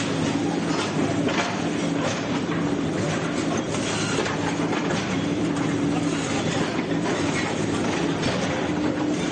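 A bulldozer's diesel engine running steadily during demolition, with repeated knocks and clatter from the machine and the debris.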